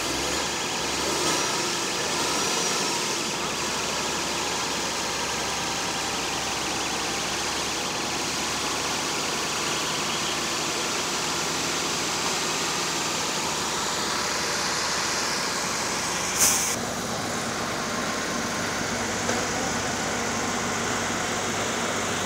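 Heavy-haul Volvo tractor units' diesel engines running steadily as they pull a multi-axle trailer past. About sixteen seconds in there is one brief, sharp, high hiss.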